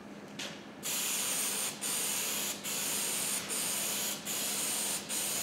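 Aerosol can of spray adhesive hissing: a short puff, then from about a second in a string of about six bursts, each just under a second long with brief breaks between them, as glue is laid down on foam.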